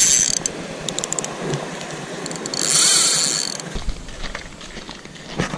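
Spinning fishing reel being cranked, its gears whirring in two spells: briefly at the start and again for about a second in the middle.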